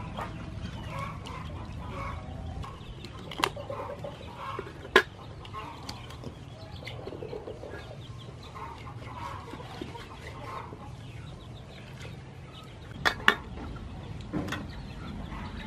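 Chickens clucking on and off, with a few sharp chops of a cleaver through raw chicken onto a wooden chopping board: the loudest about five seconds in, and two in quick succession near the end.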